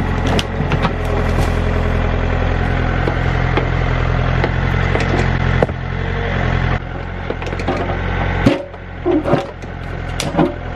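Excavator engine running steadily under load, with sharp knocks and wood cracking as the machine works at stumps, the cracks thickest near the end.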